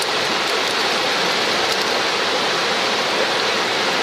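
A river rushing past, a steady, even rush of flowing water.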